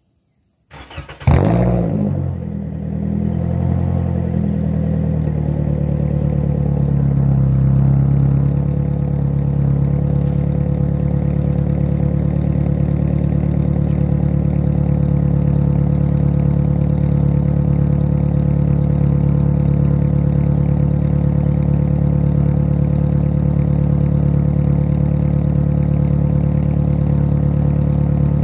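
A 2019 Toyota Corolla SE's four-cylinder engine with the muffler deleted cranks and catches about a second in with a loud burst. It then settles into a steady idle through the open, muffler-less exhaust.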